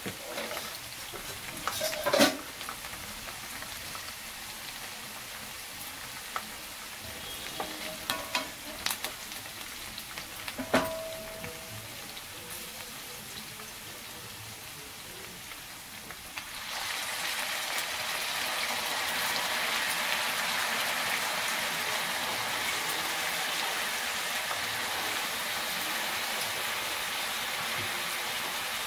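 Curry frying in a pan on the stove: a spoon knocks and scrapes against the pan several times in the first dozen seconds over a low sizzle. About 16 seconds in, a louder, steady sizzling sets in and carries on.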